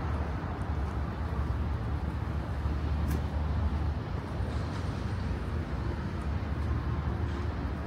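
Steady low rumble of city street traffic, with one short sharp click about three seconds in.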